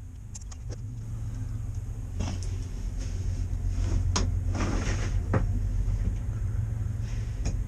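Scattered knocks, clicks and a short scrape as a PVC pipe piece is pushed into a silicone-coated hole in a boat's chain locker, over a steady low rumble.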